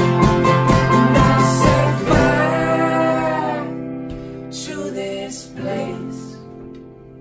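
Instrumental break in a folk-rock song: guitar-led band playing to a steady beat, then about two seconds in a chord is left ringing and fades away, with a few quieter notes after it.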